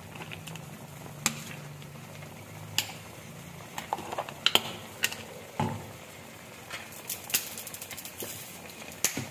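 Scattered light clicks and taps of a utensil against an aluminium cooking pot holding seasoned chicken pieces, with a faint low hum during the first three seconds.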